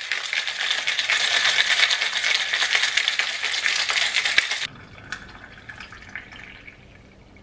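Ice cubes rattling hard inside a stainless steel cocktail shaker of iced coffee, shaken fast for about four and a half seconds and stopping suddenly. It is followed by a quieter pour of the iced coffee from the shaker into a glass.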